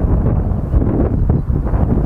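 Wind buffeting the microphone: a loud, low, gusty rumble.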